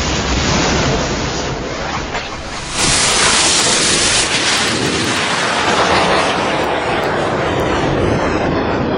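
Loud, steady rushing noise that becomes louder and brighter about three seconds in.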